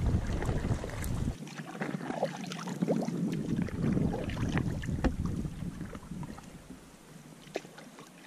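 Canoe paddling: a wooden paddle dipping and pulling through choppy water beside the hull, with splashing and sloshing that swell with each stroke. Wind rumbles on the microphone for the first second or so.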